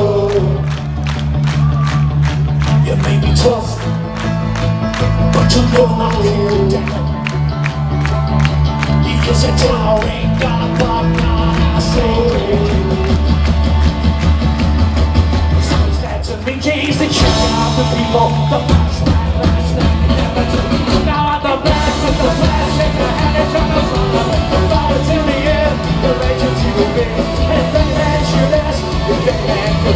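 Live rock band with fiddle, guitars and drums playing a fast song with singing, heard loud through the stage PA over an open-air crowd. There is a steady driving beat, and a brief noisy swell comes about halfway through.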